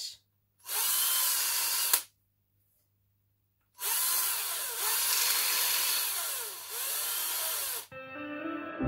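Cordless drill spinning a pen mill against the end of a pen blank, squaring it down to the brass tube: a run of about a second and a half, a pause of about two seconds, then a longer run of about four seconds. Soft music fades in near the end.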